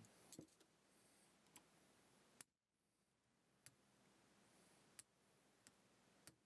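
Near silence with a few faint, scattered clicks of metal tools and small parts as a Feinwerkbau 65 spring air pistol is taken apart by hand.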